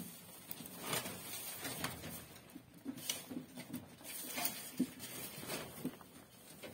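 Dry straw rustling and crackling in irregular bursts as a doe rabbit digs and shifts about in her nest box, building her nest before giving birth.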